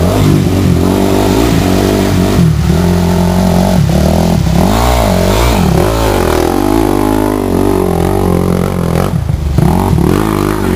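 Dirt bike engine revving under load as a rider climbs a steep bank, its pitch swinging up and down with the throttle, with the strongest rise and fall about four to six seconds in.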